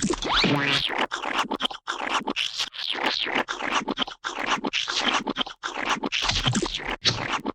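Gooey splat sound effects: a string of wet, noisy splats following one another, each lasting up to a second or so, with brief silences between them.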